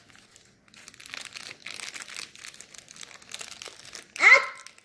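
Thin plastic bag crinkling and rustling as small fingers work it open to get at a toy figure inside. A brief voice is heard near the end.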